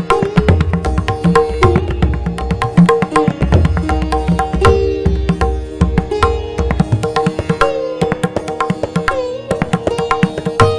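Tabla played in a rapid stream of strokes, with deep bass strokes from the bayan, over a sustained melodic accompaniment.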